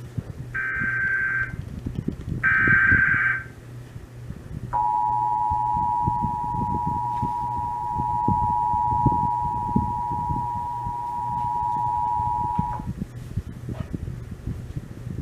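Emergency Alert System Required Monthly Test coming through a radio. The last two of the three screeching SAME header data bursts sound about a second each, then after a short gap the two-tone EAS attention signal (853 and 960 Hz) holds steadily for about eight seconds and cuts off. Other broadcast audio runs low underneath.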